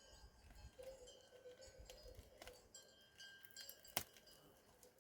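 Near silence with faint thin tones and a single sharp click about four seconds in.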